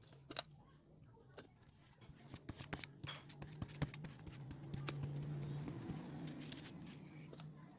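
Glue brush stroking back and forth over a leather collar strip, spreading glue: faint scratchy brushing with small clicks, building up about two seconds in and easing off near the end.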